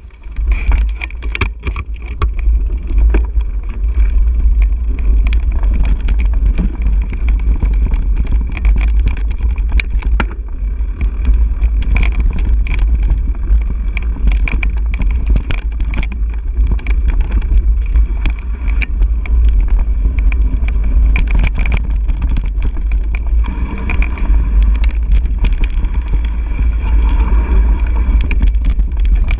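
Mountain bike rolling fast down a dirt and rock singletrack: a constant heavy rumble of wind and vibration on the microphone, with frequent clicks and rattles from the bike over roots and stones.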